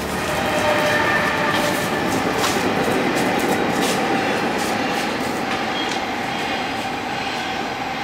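Steady rushing noise with a few faint clicks, like a train running past.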